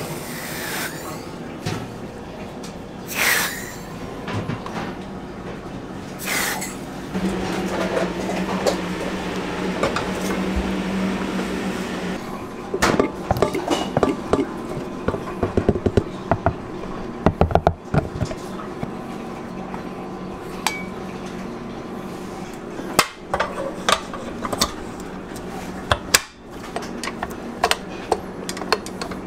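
Kitchen clatter: utensils, containers and a stainless-steel mixing bowl clinking and knocking in quick runs of sharp clicks, with a low steady hum for several seconds around seven seconds in.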